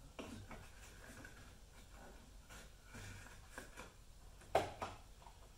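Scattered light clicks and knocks from hands working on the wiring harness and metal brackets under a car's dashboard. The sharpest is a quick double knock about four and a half seconds in.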